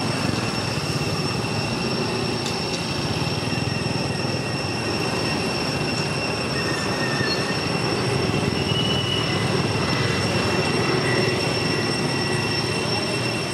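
Steady high-pitched drone of a cicada chorus: several even tones held over a constant hiss. A few short, faint chirps come about halfway through.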